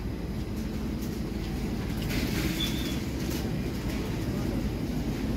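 Supermarket ambience: a steady low rumble, with a few faint clicks and one short high beep about two and a half seconds in.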